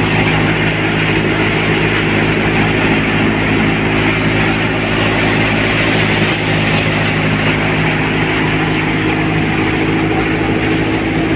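Raj hopper-model multicrop thresher running steadily while threshing soybean: a loud, even rushing of the working machine over the steady hum of its driving engine.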